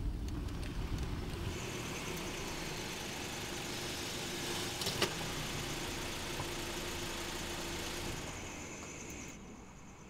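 Honda car running slowly with a steady engine and road hum, and a single sharp click about five seconds in. The sound falls away from about eight seconds in.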